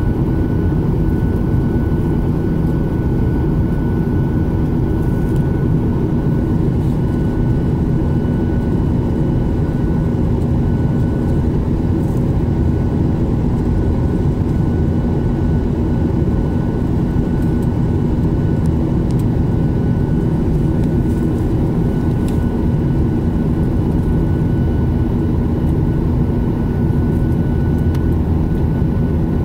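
Steady cabin noise of a Boeing 737 MAX 8 in flight, heard inside the cabin over the wing: the deep drone of its CFM LEAP-1B turbofans and rushing air, with a few faint steady tones humming through it.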